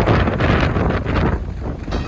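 Strong storm wind buffeting the microphone: a loud, gusting rumble of wind noise.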